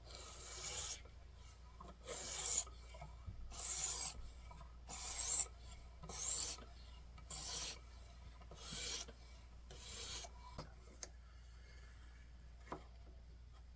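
Kitchen knife blade stroked by hand across a sharpening stone: about eight rasping strokes, roughly one every second and a bit, stopping about ten seconds in with a couple of light ticks after.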